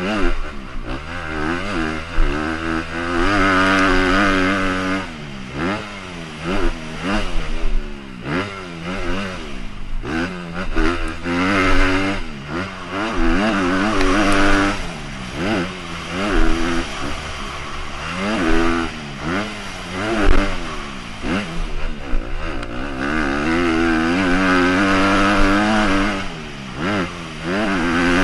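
2015 Honda CRF250R dirt bike's single-cylinder four-stroke engine under hard riding, its revs climbing and dropping again and again as the rider works the throttle and shifts through corners and straights.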